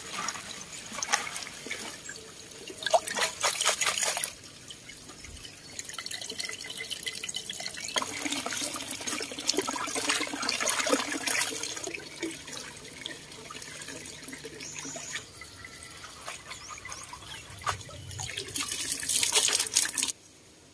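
Water pouring from a bamboo spout into a stone basin while hands swish and splash spinach leaves through the water. Three louder spells of splashing stand out over a steadier running trickle.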